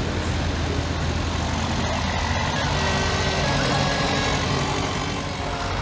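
Vintage tractor engines running steadily as a convoy drives slowly past, led by a grey Ferguson tractor passing close by with a low, even engine note.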